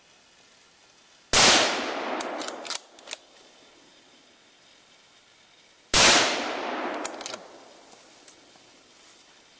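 Two rifle shots about four and a half seconds apart, each followed by an echo that dies away over about a second, with a few faint clicks after each.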